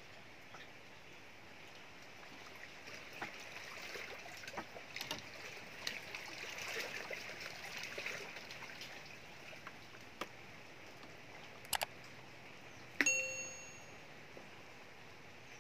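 Small clicks and rustles of a giant freshwater prawn being worked off a fishing hook by hand, over a steady background hiss. Near the end come two quick clicks, then a bright bell-like ding that rings briefly: a subscribe-button notification sound effect, and the loudest sound here.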